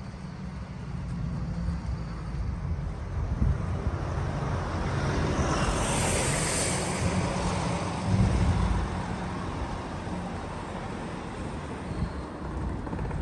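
Road traffic going by, with one vehicle passing close about halfway through: its tyre and engine noise swells and then fades away.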